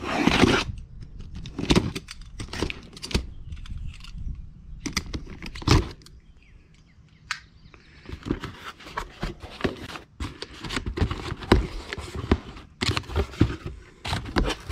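A cardboard parts box being opened by hand: a loud tearing rush right at the start, then scattered scrapes, knocks and cardboard rustles, going quiet for a couple of seconds midway before denser rustling and clicks of packing paper and flaps being handled.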